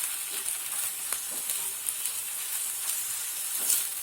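Small pieces of boneless chicken with spices sizzling steadily in hot oil in a frying pan, with a few light clicks and one louder click near the end.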